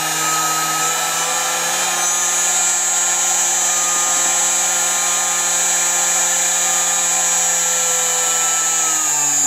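1.5 kW air-cooled GDZ-80 spindle motor running on a BEST FC300 frequency inverter (VFD): a steady motor whine and cooling-fan noise, with a thin high whine throughout. Its pitch steps up about a second in, holds, then slides down near the end as the output frequency is changed while it runs.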